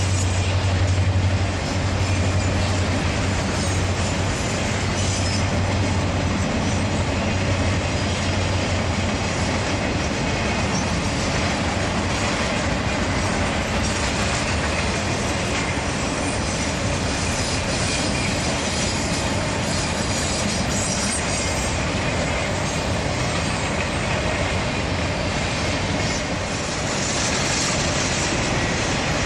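Triple Crown RoadRailer intermodal train rolling past, a steady rush of steel wheels on rail with clickety-clack over the joints. A low hum drops away about a second and a half in, and a high wheel squeal comes in near the end.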